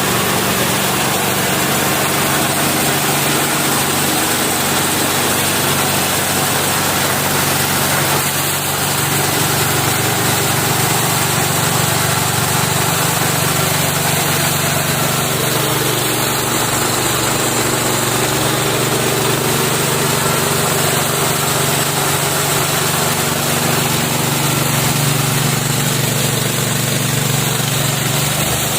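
A KD-580S rice milling machine, driven by a 7.5 HP Firman engine, running steadily while milling paddy into rice and bran. A steady engine drone sits under an even, noisy hiss.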